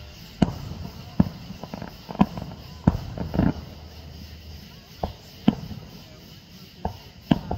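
Aerial fireworks shells bursting overhead in a string of about eight sharp bangs at irregular intervals, with one longer, drawn-out burst a little past three seconds in.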